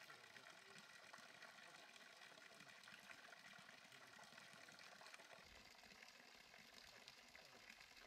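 Faint, steady trickle of water from a spring fountain's pipe spout falling into a concrete trough.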